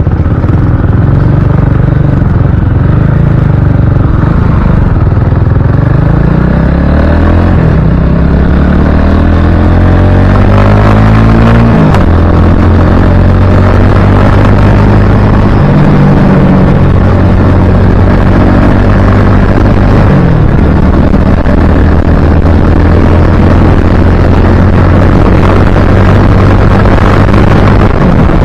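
Motorcycle engine accelerating, its pitch climbing and then dropping sharply about twelve seconds in as it shifts gear. It runs steadily after that and dips again about twenty seconds in. Wind buffets a helmet-mounted action camera's microphone throughout.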